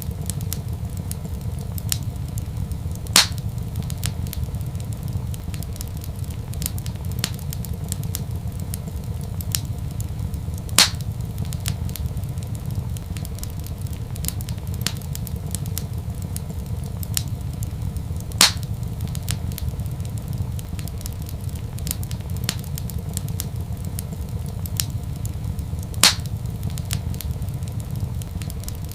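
Wood fire crackling in a fireplace: frequent small ticks over a steady low rumble, with four louder pops spaced evenly about every seven and a half seconds.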